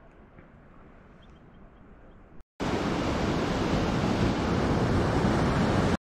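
Rushing white water of a rocky mountain stream tumbling over boulders, loud and steady. It cuts in about two and a half seconds in after a faint, quiet stretch and stops abruptly just before the end.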